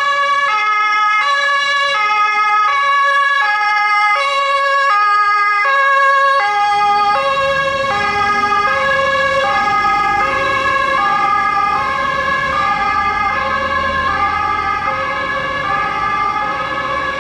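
German emergency vehicle's two-tone siren (Martinshorn) sounding, alternating between two pitches about every half second. From about seven seconds in the tones become less even and a vehicle engine's rumble grows beneath them.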